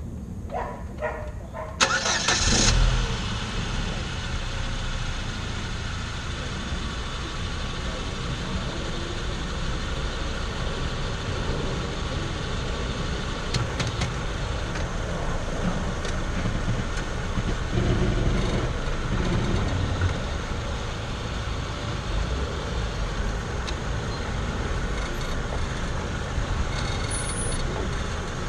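A Chevrolet Zafira's engine starting about two seconds in, then running steadily at idle.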